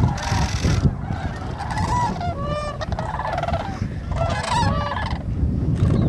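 Sandhill cranes calling: many overlapping rolling, rattling bugle calls, with the densest bursts about two and a half and four and a half seconds in, over a low rumble.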